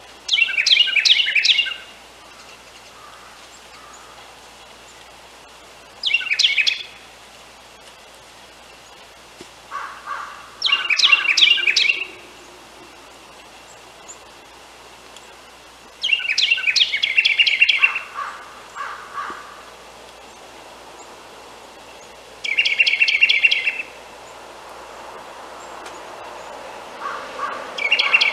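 Carolina wren singing: a loud, fast run of repeated phrases, one song about every five or six seconds, six times. Softer, lower notes come just before or after some of the songs.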